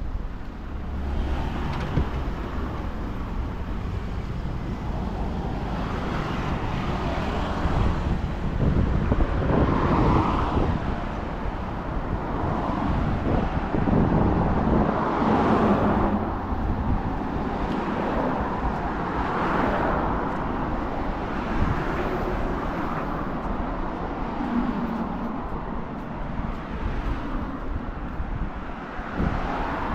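Road traffic on a busy highway: motor vehicles passing one after another, each swelling and fading over a steady background of traffic.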